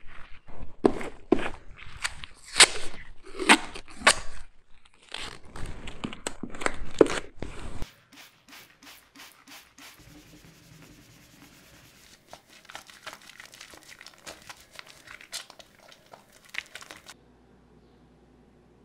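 Plastic barrier tape crinkling and tearing in a series of loud, sharp rips as it is pulled and strung. After about eight seconds a cloth rubs quickly back and forth over a wooden tabletop, much quieter, stopping a couple of seconds before the end.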